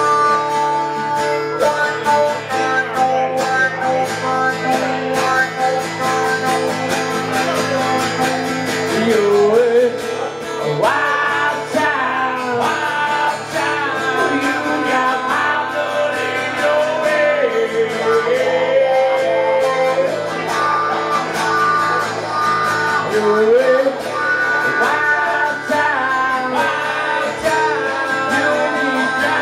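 Two guitars played live, strummed chords under a lead melody line that slides between notes, in a country style.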